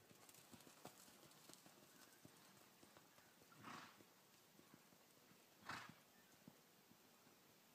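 Faint hoofbeats of a ridden horse cantering on arena sand, with two brief breathy rushes of noise about two seconds apart, the second the louder.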